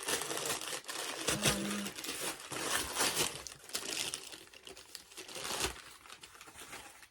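Packaging crinkling and rustling as it is handled, a dense crackle that fades away in the last second or so.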